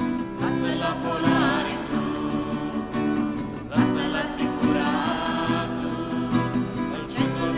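A hymn sung with guitar accompaniment, the singing carrying on through.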